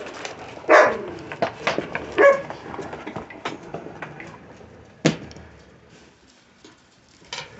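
Puppies barking and yipping in short, separate yaps, the loudest about a second and two seconds in, with a sharp one about five seconds in, growing quieter toward the end.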